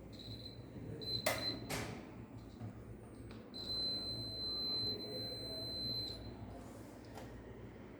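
A high, steady electronic buzzer tone sounds for about a second and a half, then again for about two and a half seconds from about three and a half seconds in; two sharp clicks come between the two tones.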